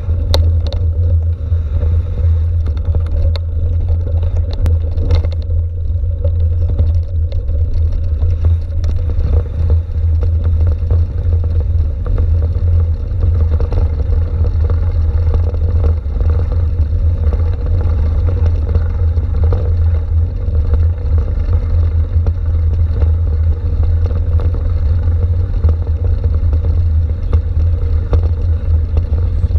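Steady, loud low rumble of wind and road vibration picked up by a handlebar-mounted camera as a mountain bike rolls downhill over gravel and then cobblestones, with scattered rattling clicks in the first several seconds.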